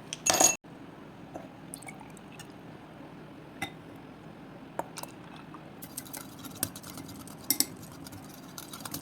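Kitchen utensils and glassware clinking: a short, louder clatter right at the start, then scattered light clinks and taps over a faint steady hum.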